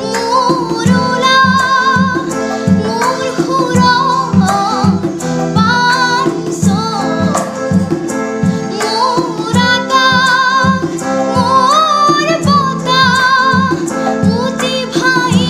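Young girl singing a song with strong vibrato, over musical accompaniment with a steady low beat.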